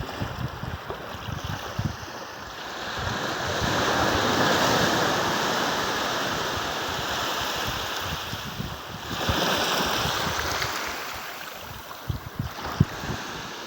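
Ocean surf: two waves break and wash in, the first swelling a few seconds in and slowly fading, the second about nine seconds in. Wind buffets the microphone with a low rumble between them.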